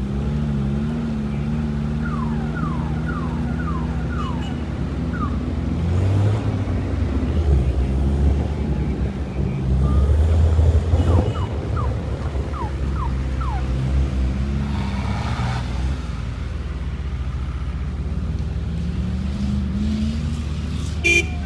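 Off-road SUV engines running at low speed on a dirt trail, getting louder as a Jeep Grand Cherokee passes close about ten seconds in. Twice there is a short run of quick, high, falling squeaks.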